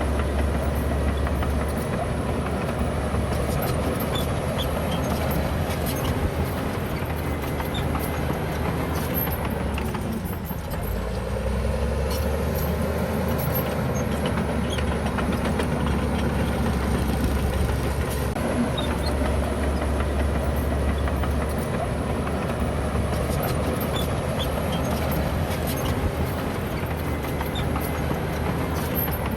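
Heavy diesel earthmoving machinery running steadily under load, with scattered clanks. About ten seconds in, the engine eases off briefly and its pitch drops and then climbs back.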